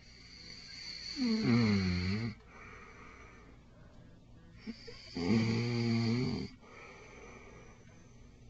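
A man snoring in his sleep: two loud snores about four seconds apart, each lasting just over a second, with quieter breathing between them.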